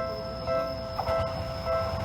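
Japanese railway level crossing warning bell ringing, a two-tone electronic ding repeating about every 0.6 s, with a low rumble of an approaching train underneath.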